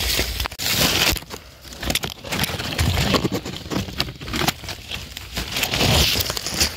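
Dry leaf litter and twigs rustling and crackling close up as hands push through the forest floor to pick a wild mushroom, in irregular bursts with small snaps and a few dull thumps.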